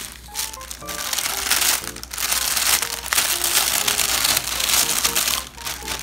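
Oil paper and a sheet of fused plastic-bag pieces crinkling as the paper is peeled back and the plastic is handled. The crinkling is loudest from about a second in until near the end, with light background music underneath.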